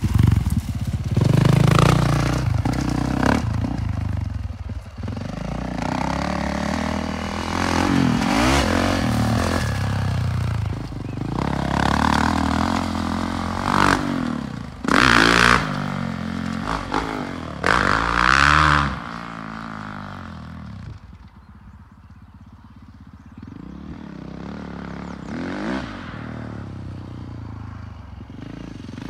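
Four-stroke 450 motocross bike riding a dirt track, the engine revving up and falling back again and again through the turns and jumps. It is loudest through the first two-thirds, with two sharp bursts of full throttle around the middle, then drops to a more distant drone before building again near the end.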